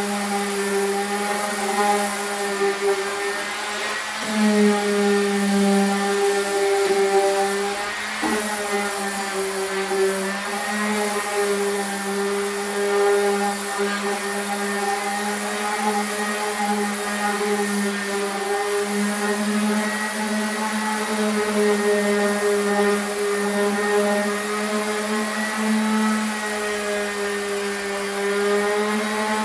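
Electric orbital sander running steadily as it is worked over the plywood cabinet panels, a constant motor hum that wavers slightly in pitch as the pad is pressed and moved on the wood.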